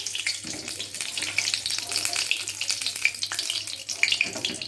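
Malpua batter deep-frying in hot oil in a steel karahi: a steady sizzle with dense, fast crackling pops.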